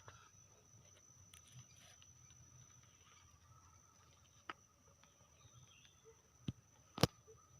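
Faint rural ambience with a steady, high-pitched insect drone. Three sharp clicks come in the second half, the loudest near the end.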